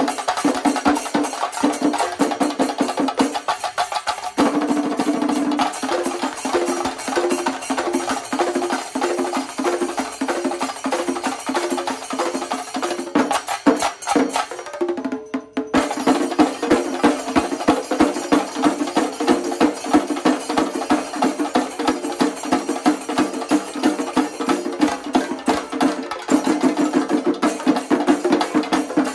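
Shinkari melam ensemble of chenda drums played with curved sticks, beating a fast, dense rhythm with a brief break about halfway through.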